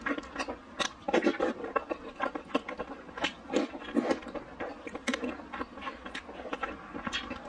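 A person eating boiled dumplings in sour, spicy soup close to a clip-on microphone: wet chewing and mouth smacks, with sips of broth slurped from a spoon, in many short irregular clicks.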